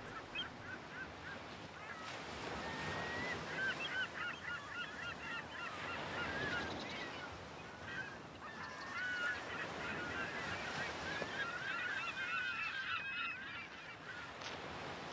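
A flock of birds calling, many short overlapping calls over a steady rushing background.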